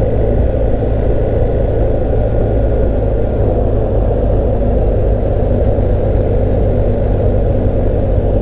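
BMW GS Adventure motorcycle cruising at a steady speed of about 50 mph, its engine running evenly under a constant rush of wind and road noise.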